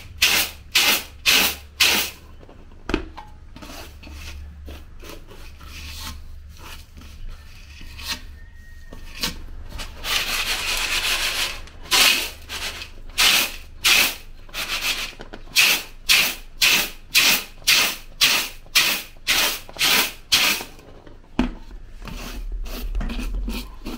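Crushed roasted cocoa beans being winnowed in an aluminium basin: the nibs swish and rattle against the metal in regular strokes about twice a second as the basin is shaken, loosening the papery husks. The strokes soften for several seconds, then a longer steady rush comes about ten seconds in before the rhythm picks up again.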